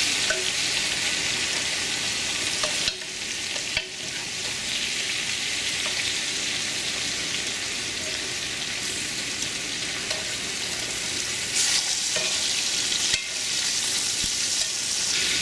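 Gar fish balls sizzling steadily as they fry in oil in a large pan, while a spatula turns them over, knocking and scraping against the pan every second or two.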